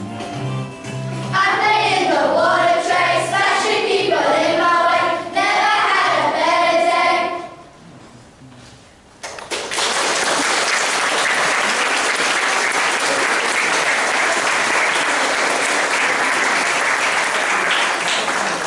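A children's choir sings the closing phrases of a song with musical accompaniment. The singing stops at about seven seconds, and after a short lull an audience breaks into steady applause at about nine seconds, which runs on through the rest.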